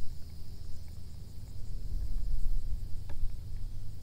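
Steady high buzz of insects from the salt marsh over a low, gusting rumble of wind on the microphone, with a faint click about three seconds in.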